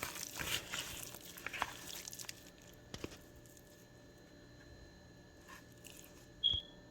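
Seasoning being mixed by hand into chopped raw chicken: a couple of seconds of short wet clicks and rustles, then they stop. A faint steady hum follows, and near the end there is a single brief high-pitched chirp.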